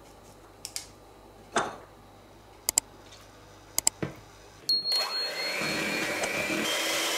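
A few light knocks and clicks, then, about two-thirds of the way in, an electric hand mixer starts and runs steadily, its beaters working flour and milk into cake batter in a plastic bowl.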